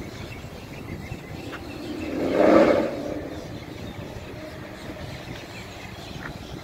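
An S197 Ford Mustang driving past: its engine and exhaust swell to a loud peak about two and a half seconds in, then fade away.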